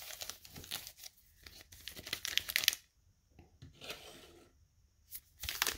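Wrapper of an Allen & Ginter trading-card pack being torn open, crinkling and tearing in bursts. It goes quiet briefly about three seconds in and starts again near the end.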